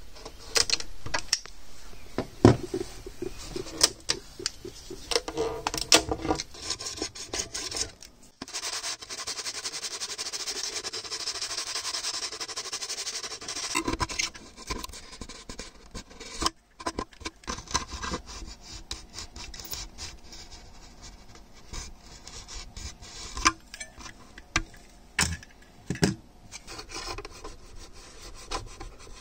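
Razor blade scraping cured epoxy off a loudspeaker horn's flange, with one long continuous scrape in the middle and shorter strokes after it. A few sharp clacks in the first six seconds.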